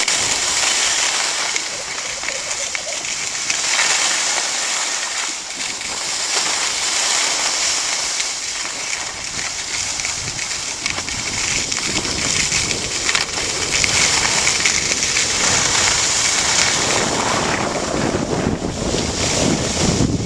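Skis hissing and scraping over packed snow while gliding downhill, with wind buffeting the microphone, heavier in the second half.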